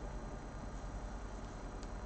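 Faint scratching of a coloured pencil making light, short strokes on hot pressed watercolour paper, over a steady low hum, with a tiny click near the end.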